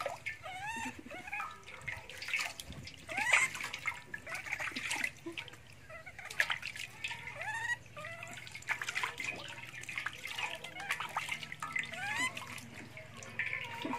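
Baby macaque crying in many short calls, each a quick rising-then-falling squeak, while water splashes and trickles in a steel basin as it is washed.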